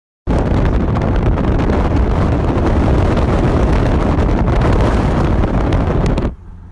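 Loud wind buffeting the microphone. It starts abruptly just after the beginning and drops off sharply about six seconds in, leaving a steady low engine hum.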